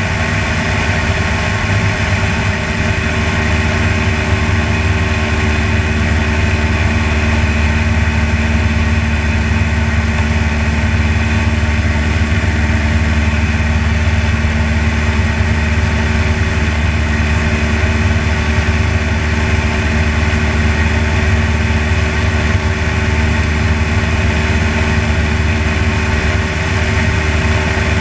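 Piston engine and propeller of a light aircraft droning steadily in level cruise flight, with an even, unchanging pitch.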